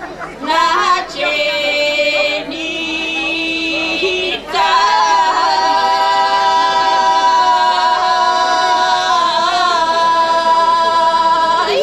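A group of women singing a Bulgarian village folk song a cappella, several voices in close harmony. After short phrases and a brief breath about four seconds in, they hold one long sustained chord.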